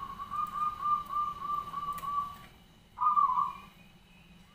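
Zebra dove (perkutut) cooing: a run of short, evenly spaced notes, about four a second, that stops about two and a half seconds in. Half a second later a louder note opens the next phrase.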